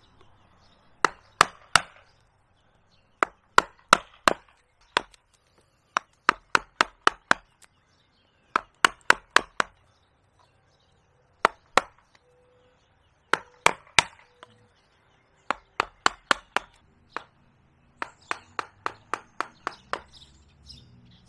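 Wooden mallet striking a carving gouge, cutting into the wet green wood of a living tree. The blows come in quick bunches of three to five, about three a second, with short pauses between, and a longer run of steady strikes near the end.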